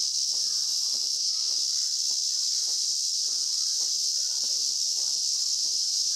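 A chorus of cicadas buzzing steadily at a high pitch, with faint indistinct sounds underneath.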